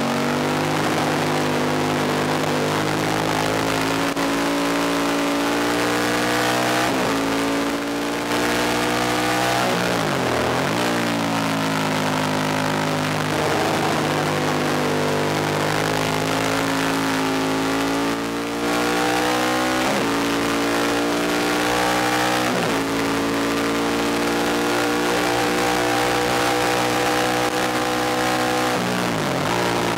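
Ducati 1000DS air-cooled L-twin engine at race speed, heard from onboard: the revs climb in long pulls through the gears and drop sharply several times under braking and downshifts, with wind rushing over the camera.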